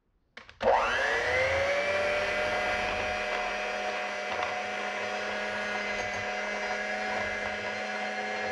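Electric hand mixer switching on about half a second in, its motor whine rising as it spins up, then running steadily as the beaters cream softened butter in a glass bowl.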